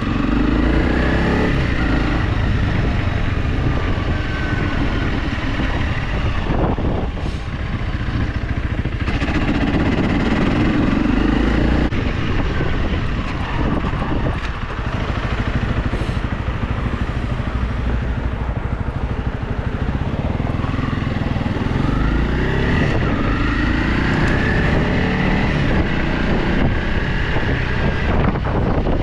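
Motorcycle engine running as it is ridden, its pitch rising and falling with the throttle.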